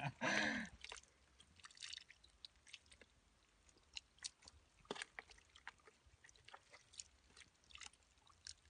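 Faint, scattered wet squelches and small clicks of gloved hands digging and picking through wet mud for small fish, at irregular intervals.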